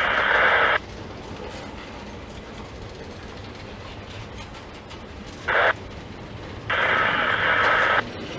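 Train of flatcars loaded with track-maintenance machines rolling past, with a steady low rumble of wheels on rail. A railroad scanner radio breaks in with loud bursts of static, once at the start, briefly about five seconds in, and again for over a second near the end.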